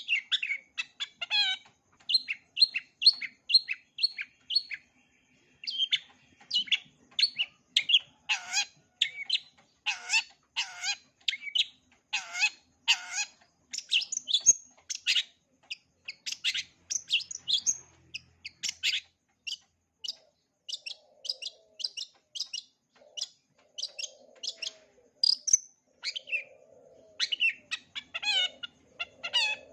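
Long-tailed shrike (cendet) singing a fast, varied string of short chirps and mimicked calls of other birds, with a run of loud downward-sweeping notes about a third of the way in.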